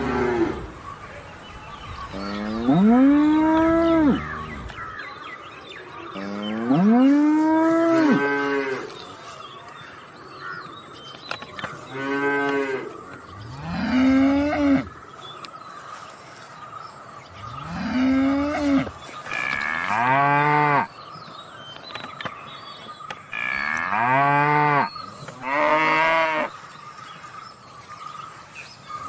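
Cattle mooing repeatedly: about eight long, loud moos, each rising and then falling in pitch, with short pauses between them.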